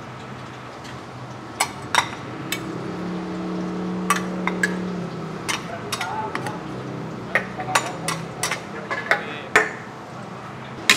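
Metal spatula and slotted ladle stirring a huge batch of fried rice in a large aluminium wok, with repeated sharp clinks and scrapes of metal on the pan, about a dozen in all. A steady background noise runs underneath, with a low hum in the middle for a few seconds.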